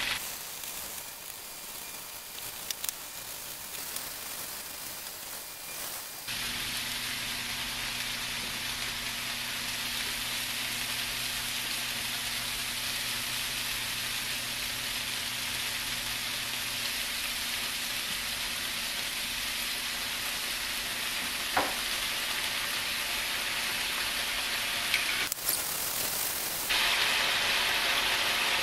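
Cubes of extra-firm tofu sizzling as they fry in a frying pan: a steady hiss that steps up in level about six seconds in, with a couple of brief clicks later on.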